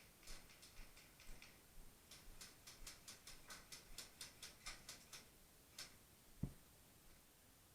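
A run of faint, quick clicks, about three to five a second, stopping near the end, with one low thump shortly after.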